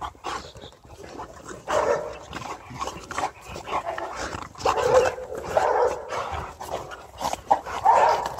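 Adult rottweilers barking and yipping in play as they leap and snap at a hose spray, in several loud bursts with quieter stretches between.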